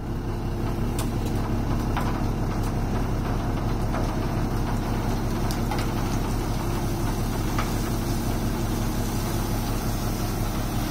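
Dump truck engine running steadily as the tipped bed unloads, with the rush of wood chips sliding off the bed and a few faint scattered clicks.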